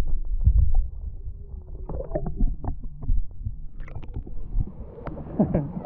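Muffled sloshing and gurgling of sea water around a camera at or under the water's surface: a heavy low rumble in the first second, then a quieter rumble with many small clicks and pops.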